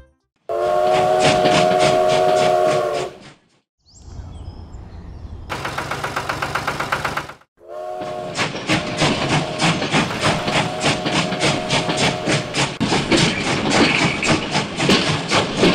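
Steam-train whistle blowing for a few seconds, then rhythmic chuffing of a steam locomotive, with more whistle blasts over the chuffing in the second half.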